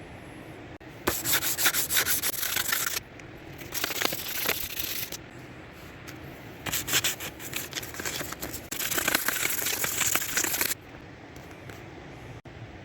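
Hand sanding with abrasive paper, in three spells of quick back-and-forth scraping strokes with short pauses between them.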